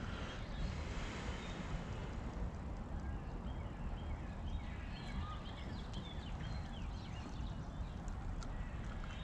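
Wind buffeting the microphone, with birds chirping in the background.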